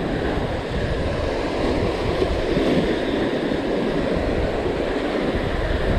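Ocean surf breaking and washing up a sandy beach, with wind buffeting the microphone.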